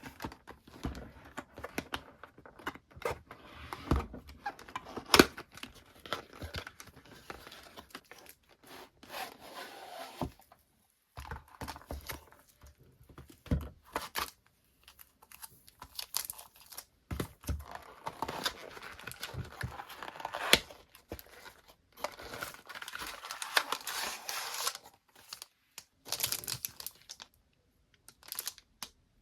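Parcel packaging being opened by hand: paper and plastic tearing and crinkling, with sharp clicks and taps, in stretches broken by brief pauses. The loudest click comes about five seconds in.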